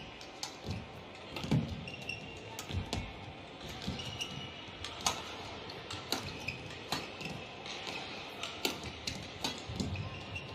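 Badminton rally: sharp, irregular knocks of rackets striking the shuttlecock and players' footsteps on the court, with short squeaks of shoes on the court surface.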